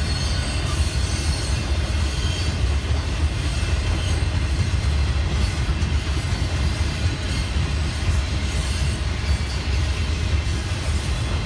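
Freight train boxcars rolling past: a steady low rumble of steel wheels on the rails.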